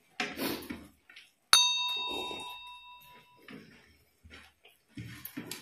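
A single sharp clink of glassware struck at the table, ringing on with a clear bell-like tone for about two seconds. Softer handling noises of eating come before and after it.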